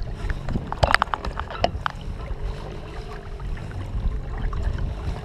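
Water splashing and sloshing as a common snook held on a lip grip is swished through the water beside a kayak to move water over its gills and revive it before release. A cluster of sharp splashes comes about a second in, over a low steady rumble.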